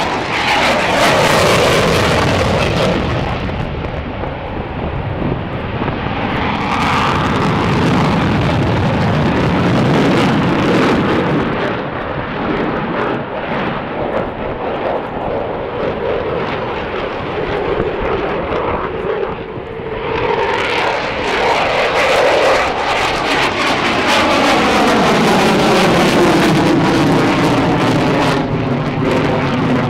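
Eurofighter Typhoon's twin EJ200 turbofans during a flying display pass: loud, continuous jet noise. The pitch drops as the jet passes in the first couple of seconds, and drops again in a long sweep over the last ten seconds.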